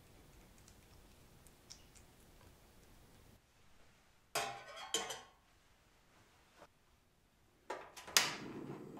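A few metallic clinks of a steel pot and thermometer about halfway through. Near the end a portable gas stove's igniter clicks and the burner catches, going into a steady flame hiss.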